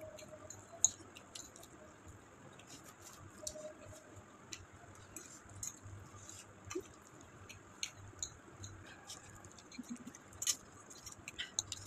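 Quiet eating noises: metal forks clicking and scraping on ceramic plates, with chewing of noodles. Short scattered clicks, the sharpest about a second in.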